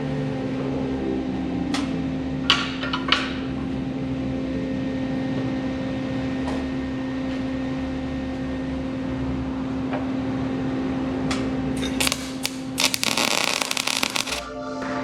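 Welder humming steadily, with a few sharp clicks, then about thirteen seconds in a couple of seconds of crackling arc as a weld is struck on the steel hitch mount.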